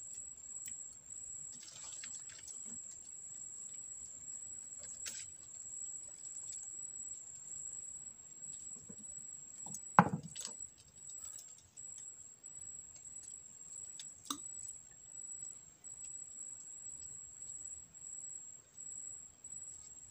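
Steady high-pitched insect drone over faint rustling, with a sharp knock about halfway through and a lighter click a few seconds later, from tackle being handled in a wooden boat.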